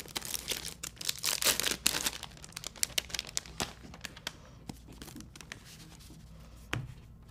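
Paper packaging rustling and crinkling as a wrapped bundle of greeting cards, envelopes and drawing surfaces is opened and handled. The crackle is dense for the first few seconds, then thins to scattered light rustles, with a soft knock near the end.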